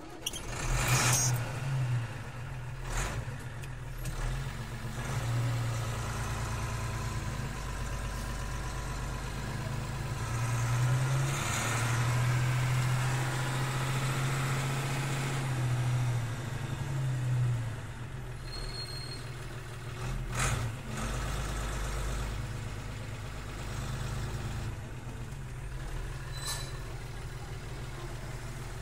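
A Bedford 10-ton diesel truck's six-cylinder engine, heard from inside the cab, catches about a second in and runs. Its speed is held up and louder for several seconds around the middle, then it drops back to a steady idle, with a few brief knocks.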